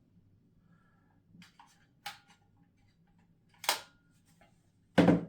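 A few sharp clicks and knocks of small hard microphone gear being handled and set down, the loudest near the end, over quiet room tone.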